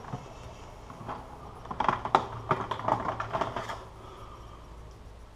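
Metal sockets and hand tools clinking and rattling as a hand rummages through a toolbox and a cluttered workbench, a quick flurry of clicks through the middle.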